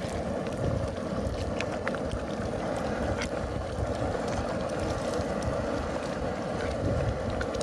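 Steady rush of the fire under a five-gallon cast iron jambalaya pot, with the thick rice mixture boiling and a wooden paddle stirring it, knocking lightly against the pot now and then.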